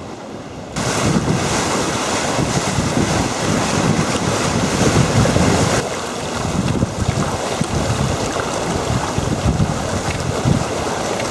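Bow wave and wake rushing and breaking along the hull of a pilot cutter under sail at speed, with wind buffeting the microphone. The loud water noise comes in suddenly about a second in.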